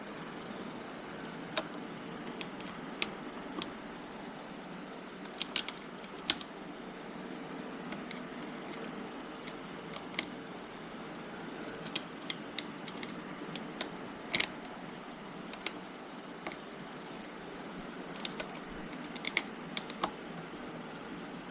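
Irregular light clicks and taps of hands working on a motorcycle's plastic body parts and small hardware, over a steady background noise. The clicks come singly and in short clusters, with a few sharper ones around six seconds in, near the middle and toward the end.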